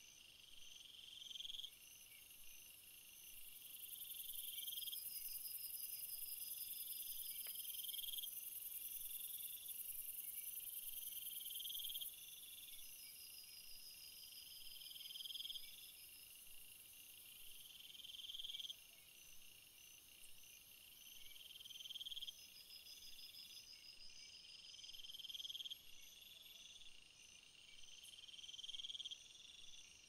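Crickets chirping in a night-time chorus: a call that swells and stops short about every two seconds, over a steady very high trill that is louder in the first third.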